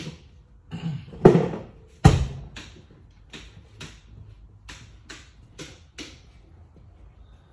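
A run of about a dozen sharp knocks and clicks from the sway bar and its end-link hardware being moved and handled. The two loudest come a little over one second and two seconds in; lighter ones follow about every half second and die out a second or so before the end.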